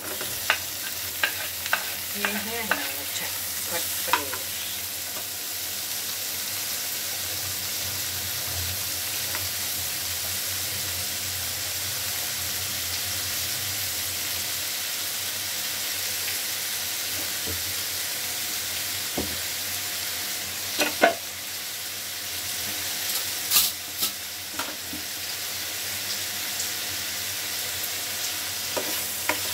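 Paneer cubes and tomato-onion masala sizzling steadily in a frying pan. Metal spoon clinks come in the first few seconds as the paneer is scraped in from a bowl, and a few sharp knocks come around twenty seconds in.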